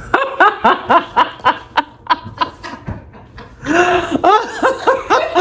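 A man laughing in short, quick bursts, pausing about two seconds in and then laughing again.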